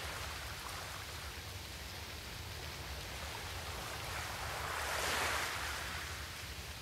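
Steady rushing noise with no speech, swelling briefly about five seconds in.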